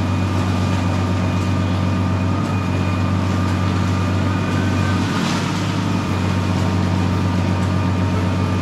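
Steady low hum of a fishing boat's engine driving its deck crane as the crane hoists a net-load of yellowtail onto the quay. A short clatter cuts in about five seconds in.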